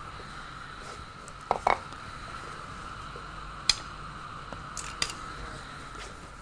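A few light clicks and knocks of a bowl and kitchen utensils being handled and set down on a counter: two close together, one on its own, then two more. Under them runs a steady faint hiss.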